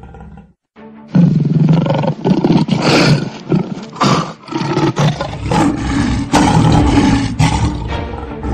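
Tigers roaring again and again, loud, starting about a second in after a brief silence, with music underneath.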